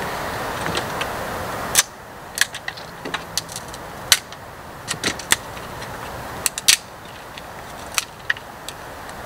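Dry twigs and tinder being broken and worked by hand: about fifteen short, sharp snaps and crackles at irregular intervals. A steady rushing noise stops abruptly about two seconds in.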